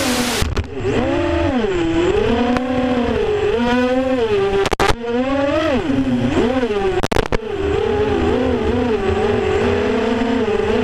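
FPV racing quadcopter's motors and propellers whining, heard from on board, the pitch swooping up and down as the throttle changes. Two very brief cut-outs come about five and seven seconds in.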